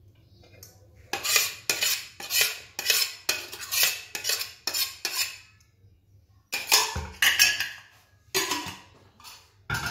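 A metal spoon scraping thick blended mint sauce out of a stainless steel blender jar, in about eight quick strokes, roughly two a second. After a short pause come a few sharper metal knocks and scrapes.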